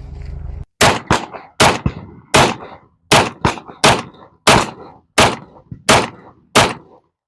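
A firearm shooting a steady string of about a dozen shots, roughly one every 0.7 seconds, each sharp report followed by a short echo. The shots start after a low steady rumble that cuts off abruptly under a second in.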